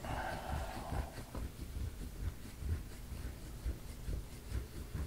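Faint rubbing and scraping of hands working the soft tissue of a shoulder, with irregular soft low knocks.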